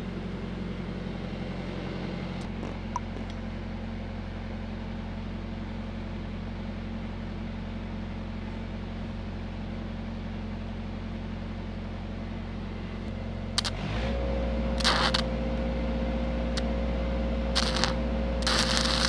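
SAE-300 engine-driven welding machine running steadily. About 14 s in its engine note shifts and grows louder as a stick-welding arc is struck. The arc crackles in several short bursts as the steel pipe handrail joint is tacked.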